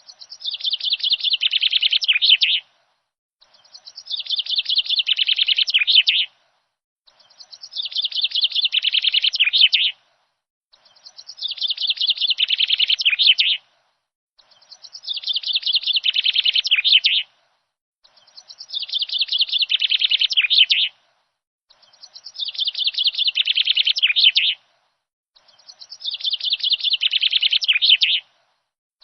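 Small songbird chirping in rapid runs: bursts of about three seconds that each build up and cut off abruptly. The same burst repeats about every three and a half seconds, eight times, as a looped recording.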